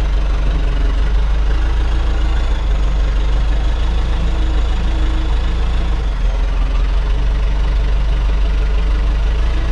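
The roughly 90-horsepower diesel engine of a 1994 JCB 214 backhoe loader running steadily with a deep, even drone while the machine carries a scrap car in its loader.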